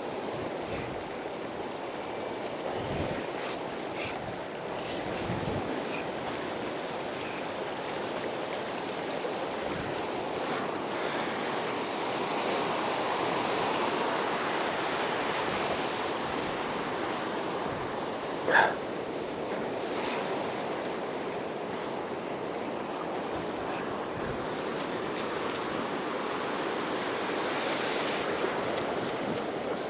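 Ocean surf breaking and washing on a sandy beach, a steady rush that swells and eases, with a few sharp clicks over it, the loudest about two-thirds of the way through.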